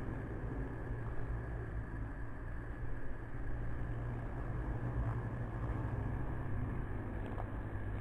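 Honeybees buzzing at a hive entrance, the audio slowed down with the slow-motion picture into a steady low drone.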